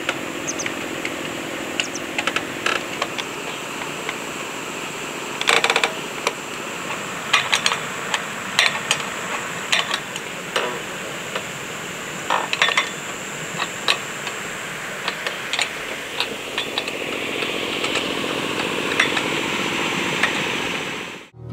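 Irregular metal clicks and knocks from hand work on a power line's wire and steel pole, over a steady high insect drone.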